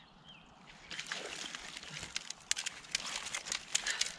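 Water splashing with a rapid, irregular run of clicks and rustles, starting about a second in, as a hooked asp is scooped up in a landing net and lifted out of the river.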